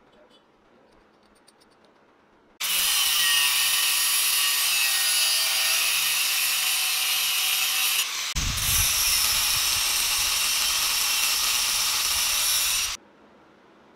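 An angle grinder's abrasive cut-off disc cuts through steel bar, making a loud, steady grinding hiss. It starts abruptly about two and a half seconds in, breaks off for a moment about eight seconds in, comes back with a deeper rumble under it, and stops sharply near the end.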